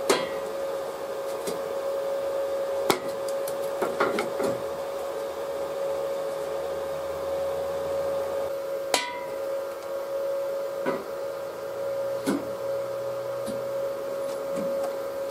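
Sharp metallic clacks and knocks as magnetic welding angle holders snap onto steel square tubing and the tubes are knocked into position. There are about seven strikes, the loudest right at the start and about nine seconds in, over a steady hum.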